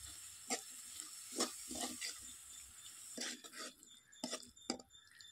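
Metal spatula scraping and knocking against a metal wok as vegetables and sauce are stirred: a series of faint, irregular scrapes and taps.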